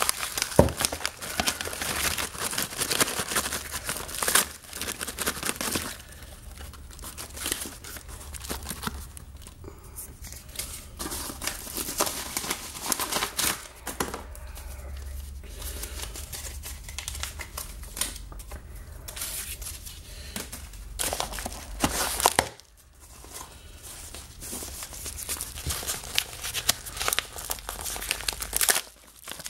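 Paper crinkling and tearing in irregular bursts as a yellow paper mailer envelope is torn open and unfolded by hand, busiest in the first few seconds, with a brief lull about three quarters of the way through.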